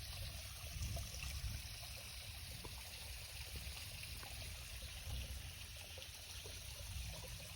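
Storm runoff water running and trickling down a creek draw, a steady wash of water with a few faint ticks through it.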